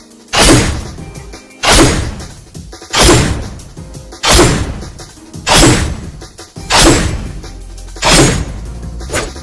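A run of seven heavy hit sound effects of the anime-style combat kind, one about every 1.3 seconds, each a sharp strike that rings and fades over about a second.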